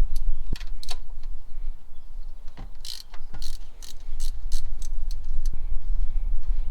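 Ratchet wrench clicking in short runs, a few scattered clicks at first and then a quicker series of about three a second, over a low steady rumble.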